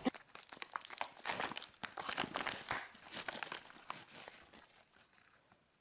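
Clear plastic food pouch crinkling as a hand rummages inside it: a run of sharp crackles that thins out and stops about four and a half seconds in.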